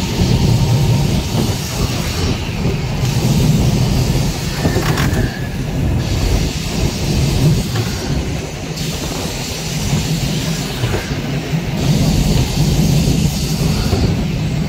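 Blackpool tram running along its track, heard from on board: a steady rumble of wheels on rails and running gear.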